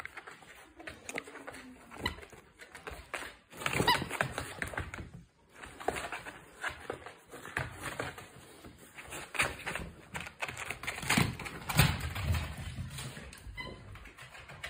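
Miniature dachshund scrambling about in play with a plush toy: an irregular run of claw clicks, scuffs and knocks on tatami mats, loudest about four seconds in and again near eleven to twelve seconds. A couple of short high-pitched sounds break through, one about four seconds in and one near the end.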